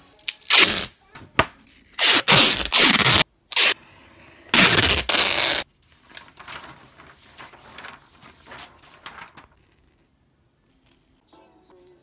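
Four loud scraping strokes, each about half a second to a second long, come in the first six seconds. A fainter, scratchier rubbing follows and dies away near the end.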